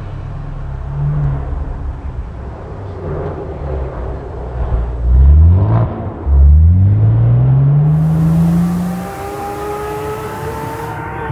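Rally car engine accelerating hard: the revs climb, drop for a moment at a gear change, then climb again for about three seconds before the sound fades.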